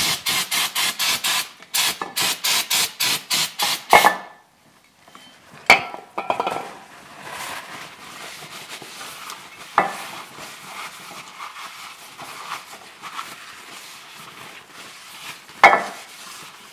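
Brake cleaner sprayed onto a differential cover in rapid short squirts, about four a second, for the first four seconds, ending in a loud knock. Then a paper towel is rubbed over the metal cover, with a few knocks of the cover on the work surface.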